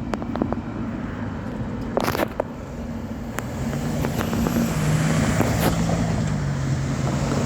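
A vehicle's engine running with a steady low hum, growing louder from about three seconds in, with a few sharp clicks over it.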